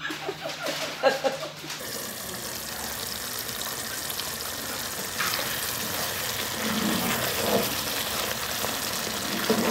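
A pot of brinjal curry simmering on the stove, a steady hiss.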